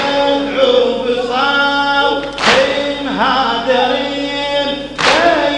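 Men's voices chanting a Shia mourning lament (latmiyya) in a melodic, drawn-out line. A loud unison slap comes about every two and a half seconds: the crowd beating their chests together in time.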